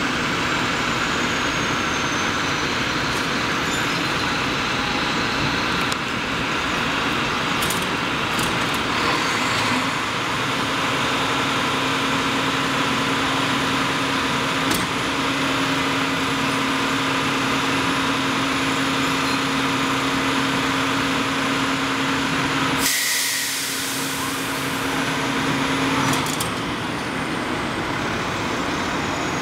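Garbage truck engine running at a standstill. About a third of the way in a steady hum joins it and holds. About three-quarters of the way in, a loud hiss of air from its air brakes lasts about three seconds.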